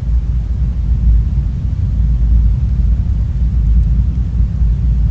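Birch-log fire burning with a steady low rumble of flame and a few faint crackles.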